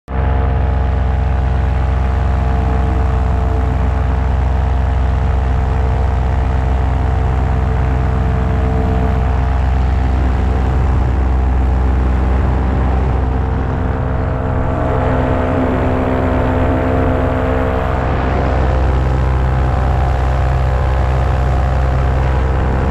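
Paramotor engine and propeller running steadily in flight, a loud continuous drone with a slight shift in pitch for a few seconds past the middle.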